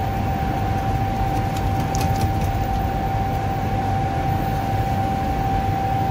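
Steady machine hum and rushing noise with a constant high whine running through it, the running din of kitchen equipment.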